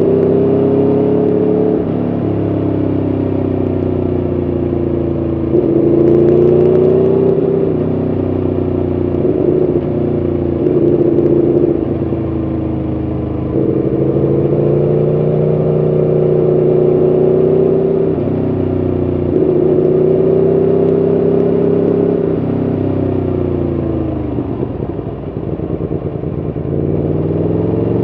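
Aprilia Tuono V4 1100RR's V4 engine under way, its note climbing and falling again and again as the rider works the throttle and gears through the bends. About three-quarters of the way through the pitch drops on a long ease-off, then climbs steeply as it accelerates near the end.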